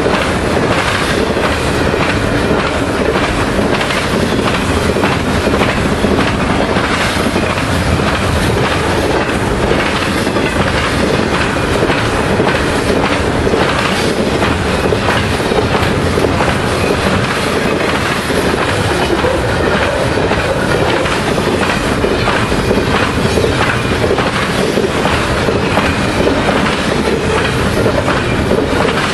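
Double-stack container freight cars rolling past close by: a steady rumble of wheels on rail with a continuous clickety-clack of wheels crossing rail joints.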